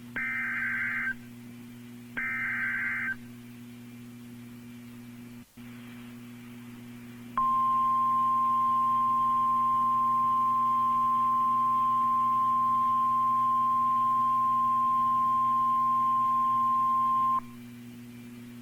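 NOAA Weather Radio Emergency Alert System tones: two short, harsh bursts of SAME header data about a second each, then, after a pause, a steady single-pitch warning alarm tone held for about ten seconds, the signal that a warning is about to be read. A low steady hum from the radio runs underneath.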